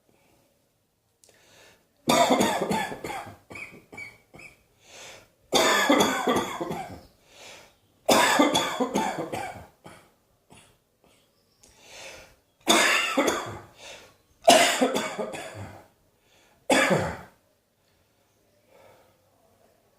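A person coughing in repeated fits: about six loud bouts of several coughs each, starting about two seconds in, with smaller coughs between them.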